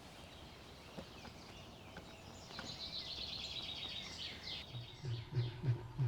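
Forest ambience with a songbird's rapid, high trilling song in the middle. Near the end a run of low, evenly repeated pulses begins, about three a second.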